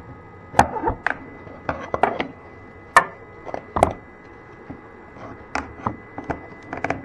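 A steel screwdriver knocking and clicking against a wooden stop block as it is wedged under it and pried up off its friction-fit dowels: a series of irregular sharp knocks.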